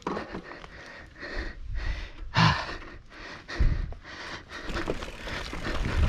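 A rider breathes hard as a Nukeproof Scout hardtail mountain bike rattles down a rocky trail, with louder knocks about two and a half and three and a half seconds in.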